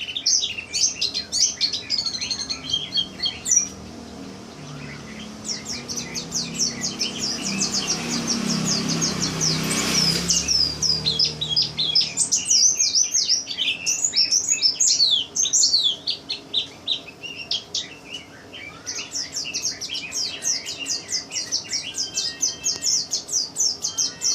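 A pleci (white-eye) twittering in rapid, high chirps, pausing briefly a few seconds in. Through the middle a louder rushing noise with a low hum builds, peaks about ten seconds in, and stops.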